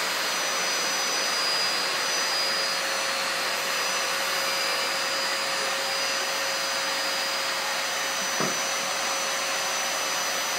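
Vacuum cleaner motor running steadily with a constant whine, with a single brief knock about eight seconds in.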